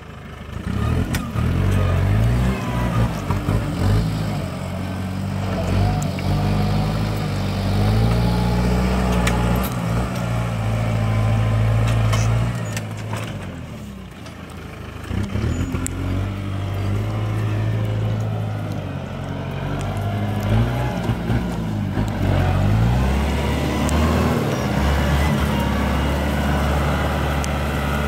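Kubota M7040 tractor's four-cylinder diesel engine running under load while pulling a tine tillage implement through soil, its pitch rising and falling. It dips in loudness about halfway through, then comes back.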